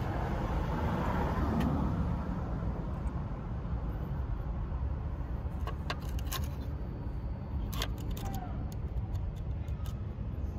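A steady low rumble with a handful of small sharp clicks and taps from hands working at a plastic ignition control module, clustered in the middle of the stretch.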